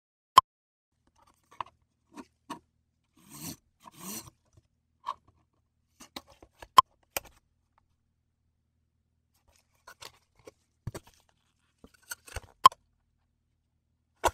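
Polypropylene corrugated plastic sheet handled with gloved hands on a cutting mat: scattered sharp clicks and taps, with short scraping rustles in between, the longest a little past the first few seconds.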